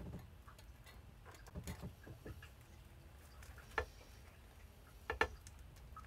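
Faint, scattered plastic clicks and taps of computer parts being handled and fitted on a bare motherboard, the loudest a quick double click about five seconds in.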